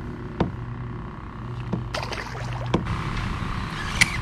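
A few sharp knocks and clicks from fishing gear handled in a plastic fishing kayak, over a steady low hum. A light rushing noise comes in about three seconds in.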